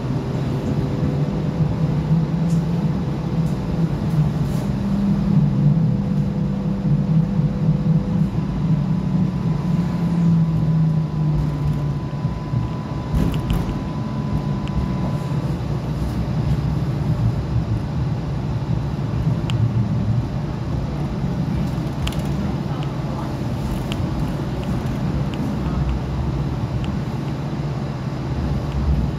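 Tram running, heard from inside the car: a steady low rumble, with a faint steady whine for several seconds around the middle.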